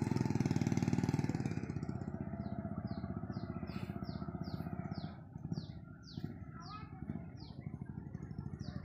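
An engine runs steadily with a low hum, loudest in the first couple of seconds. From about two and a half seconds in, a bird repeats a short, high, falling chirp two or three times a second.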